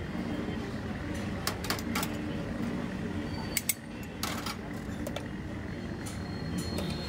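A metal spatula clicks and scrapes on a steel counter as chicken shawarma filling is spread over flatbreads, with a few sharp clicks about a second and a half, two seconds, and three and a half to four and a half seconds in. A steady kitchen hum runs underneath.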